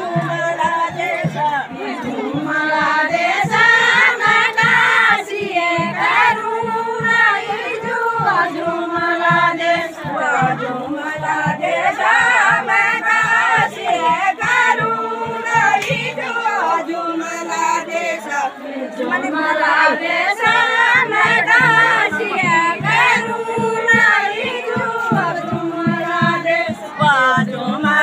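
A group of women singing a Kumaoni jhora folk song together in unison, the melody rising and falling in repeated phrases.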